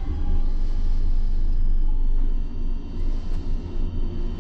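Liebherr tower crane's drive machinery heard from inside the operator's cab while the hoist lowers a load at slow speed. A steady low rumble with faint steady whining tones above it, even for about two seconds and then wavering in level.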